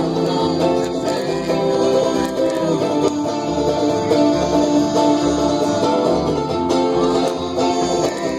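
Live band playing a song on plucked strings, with long held notes over a regularly pulsing bass line. It is recorded through a microphone with nearly dead batteries, which gives the sound a warped, strange effect.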